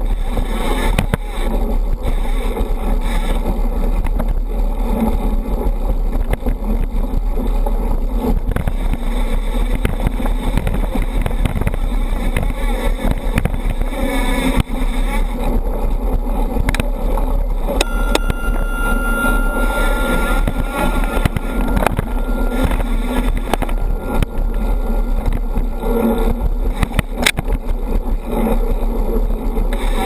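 Mountain bike rolling fast over a dirt singletrack trail, heard through a bike-mounted action camera: a constant rumble of tyre and wind with steady rattling and knocks from the bike and camera mount over roots and bumps. A thin high whine sounds for a few seconds around the middle.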